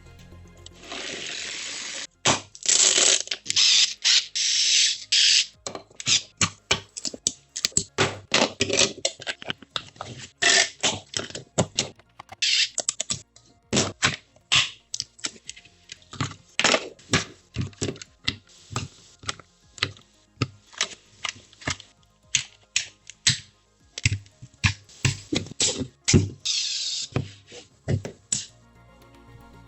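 A fast run of sharp clicks, snaps and knocks from parts being fitted and assembled, broken by several short bursts of hissing, grinding noise about a second long.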